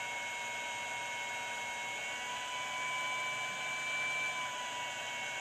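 Steady electrical hum with a high thin whine and hiss from an infrared BGA rework station while its IR lamp heats a graphics card's GPU. Around the middle the whine edges up in pitch and the sound gets a little louder for a couple of seconds.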